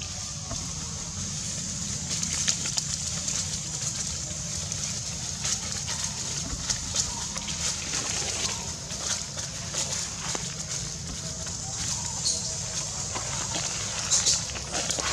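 Dry leaf litter rustling and crackling in short irregular bursts as a macaque walks across the forest floor. Under it runs a steady high hiss and a low rumble.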